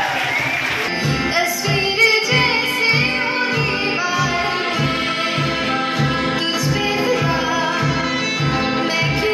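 Live student band: a woman singing into a microphone over strummed guitars, with a steady beat of about two low thumps a second. Audience clapping dies away in the first second.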